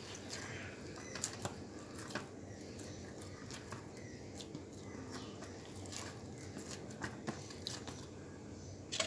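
Faint sounds of hands kneading a firm wheat dough in a steel plate: soft squishing and pressing, with a few light clicks scattered through.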